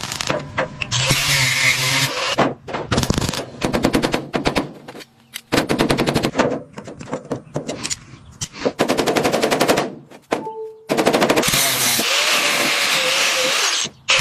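Impact wrench hammering in several short bursts of rapid blows, with stretches of loud hiss between them.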